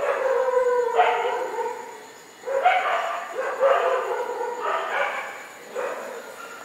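A dog yelping and howling over and over, a call roughly every second.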